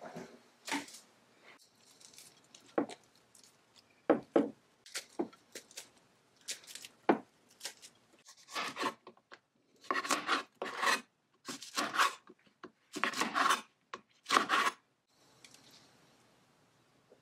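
Chef's knife slicing green chillies on a cutting board: about a dozen crisp cuts, each ending in a knock on the board, in the second half. Before that come a few scattered light knocks and rustles as a glass container is set down and enoki mushrooms are handled into it.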